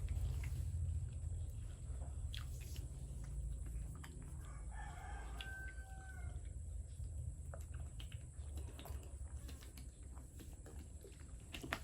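A rooster crows once in the background, a single pitched call of about a second and a half near the middle. A steady low hum and scattered small clicks run underneath.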